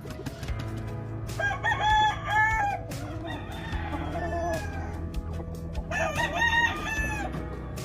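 Gamefowl roosters crowing, two crows about four seconds apart, over a low steady hum.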